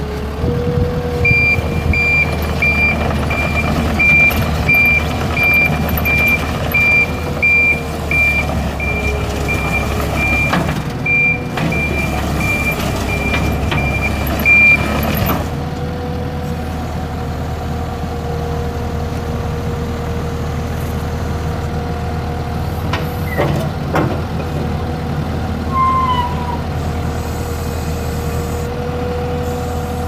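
Takeuchi TL140 skid steer's Isuzu four-cylinder turbo diesel running steadily, with its backup alarm beeping about one and a half times a second for the first half before it stops. The engine runs on alone, with a couple of sharp clicks later.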